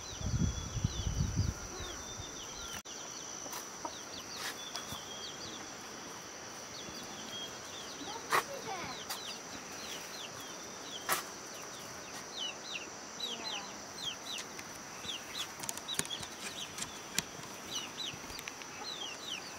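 Rural outdoor ambience: a steady high insect drone with many short, quick bird chirps, more frequent in the second half. A low rumble in the first second and a half, and two sharp knocks about eight and eleven seconds in.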